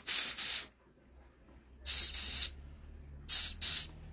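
Air blown in short hissing puffs, about four, through the clogged petrol tap of an old Sachs Stamo two-stroke's fuel tank, the tap blocked with congealed old fuel.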